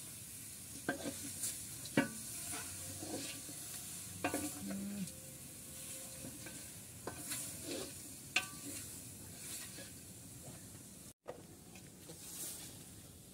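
Food sizzling in a metal pan over a wood fire, with a utensil stirring and scraping against the pan every second or two.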